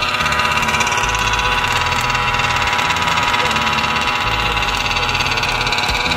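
Small two-stroke engine of a gas-powered large-scale RC buggy idling steadily, with a fast buzzing pulse.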